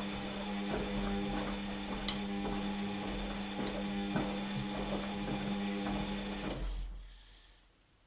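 Washing machine's drum motor running with a steady hum and faint repeated knocks as the drum turns, a sharp click twice, then winding down and stopping about seven seconds in.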